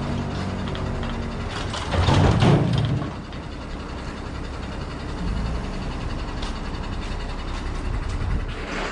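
An overturned walk-behind power tiller is swung upright on a wrecker crane's slings and set down on its wheels, landing with a loud clatter about two seconds in. A truck engine runs steadily underneath.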